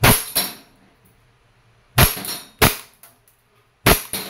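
E&C Glock 19X gas blowback airsoft pistol firing on green gas: six sharp cracks in three quick pairs, about two seconds apart.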